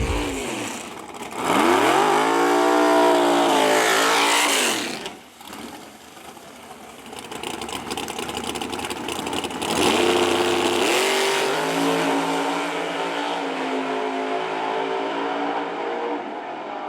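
Drag race car engine revving hard twice. The first run climbs in pitch, holds and drops away after a few seconds; the second, from about ten seconds in, holds a steadier pitch for several seconds.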